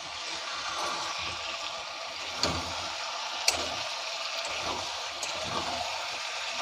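Pre-fried chicken pieces sizzling in spiced oil in a steel kadai as they are stirred with a spatula: a steady frying hiss, with a couple of sharp scrapes and knocks of the spatula against the pan.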